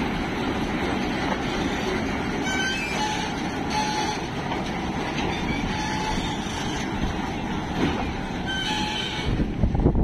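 Kartar 4000 combine harvester running, a steady loud mechanical clatter and hum with several short, high metallic squeaks.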